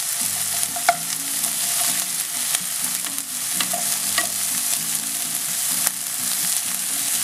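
Diced onion sizzling in olive oil in a frying pan, stirred with a wooden spatula that scrapes and ticks against the pan every second or so. A steady frying hiss, the onion being cooked towards golden.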